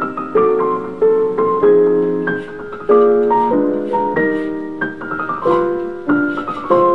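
Background piano music: chords and melody notes struck and left to ring, changing about every half second.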